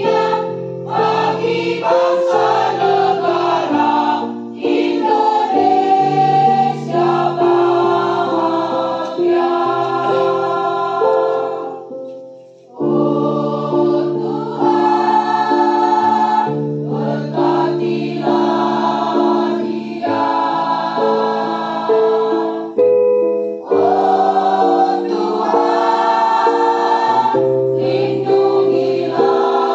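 Teachers' choir singing a song in several parts, with long held chords and a brief break between phrases about twelve seconds in.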